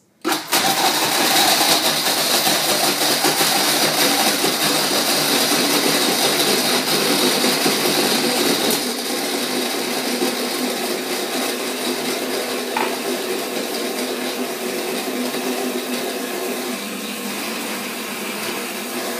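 Countertop blender running steadily, blending a chocolate mousse mixture of eggs, butter and chocolate chips while hot milk is poured in. It starts just after the beginning and becomes slightly quieter about nine seconds in.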